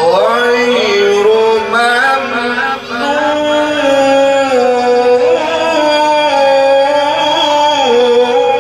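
A man reciting the Quran in the melodic tajweed style, drawing out long held notes that step up and down with ornamented turns. There is a short break for breath about three seconds in.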